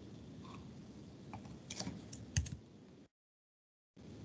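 Computer keyboard keystrokes and clicks: a handful of light taps, the loudest with a dull thud about two and a half seconds in. The audio then cuts out completely for about a second.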